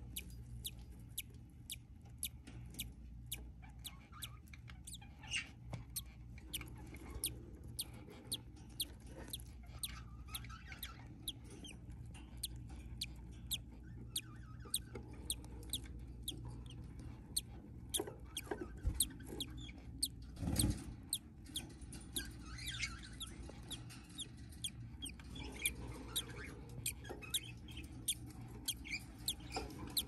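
Faint cheeping of newly hatched budgerigar chicks in the nest box, with many light clicks and taps scattered throughout over a low steady hum.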